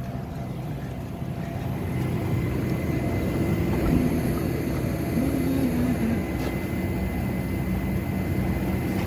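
Steady low rumble with a thin, faint steady whine on top, and a faint voice briefly in the background about four and five seconds in.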